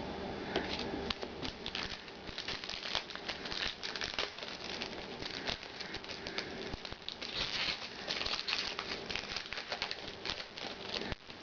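Crinkling and tearing of a baseball card pack's wrapper as it is opened and handled: an irregular run of crackles.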